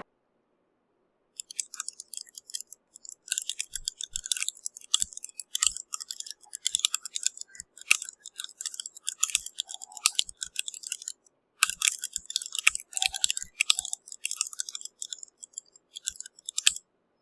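Fast typing on a custom handwired mechanical keyboard: a quick run of key clacks that starts about a second and a half in, pauses briefly about two-thirds of the way through, and stops just before the end.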